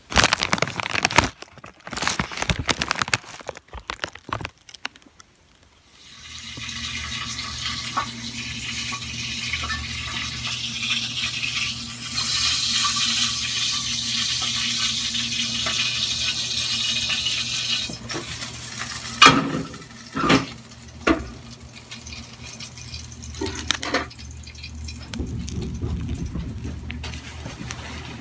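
A few seconds of sharp clicks and rustles, then water pouring steadily for about twelve seconds over a low hum, louder in the second half, and ending in a few knocks.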